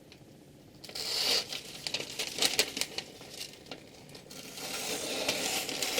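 Crinkling and crackling with many sharp little clicks, starting about a second in, easing off, then turning to a steadier hiss over the last second and a half.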